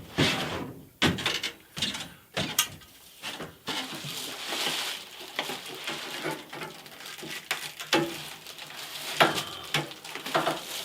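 A string of knocks and clanks from a cut length of electrical conduit being handled and fitted up at the ceiling, with handling noise in between.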